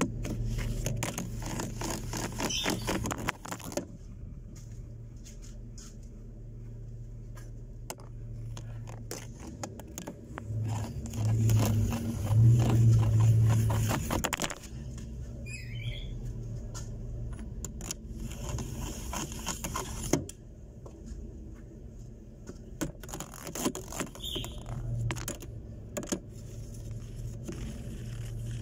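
Twin-tub washer-dryer spinning at 400 rpm with an unbalanced load: a steady motor hum with irregular rattling and knocking, loudest about halfway through.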